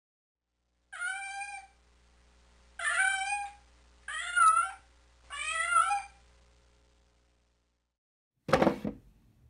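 A cat meowing four times, each meow lasting about half a second to a second with a slight rise and fall in pitch. A short sharp thump comes near the end.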